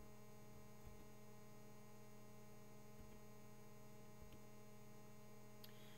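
Near silence: a faint steady electrical hum, with a few faint clicks.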